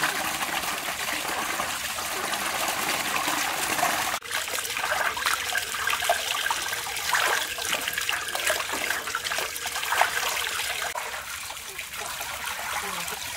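Water trickling and splashing, with a sudden break about four seconds in, after which there are irregular small splashes.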